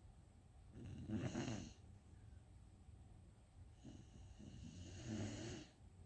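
Sleeping dog snoring: two long snoring breaths, the first about a second in and the second starting about four seconds in and lasting about two seconds.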